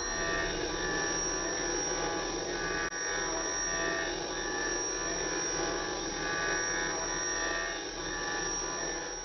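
CNC milling machine (OPTI mill F310) cutting a metal block with an end mill: a steady high whine from the spindle with cutting noise that swells and eases as the tool moves through the part. It fades out at the very end.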